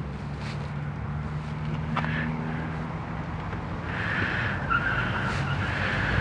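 A vehicle engine idling as a steady low hum. A higher hissing noise joins about four seconds in.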